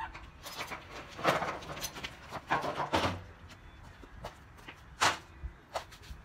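A series of sharp clattering knocks and scrapes, about five spread over several seconds, with no engine running.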